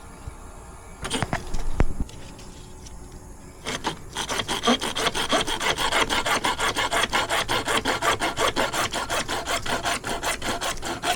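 Hand saw cutting through plastic pipe in fast, even back-and-forth strokes, starting about four seconds in after a few knocks of handling.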